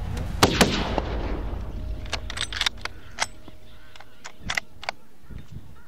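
A single hunting-rifle shot at a hippo about half a second in: a loud sharp crack with a quick second report and a short ringing tail. A run of short, sharp clicks follows over the next few seconds.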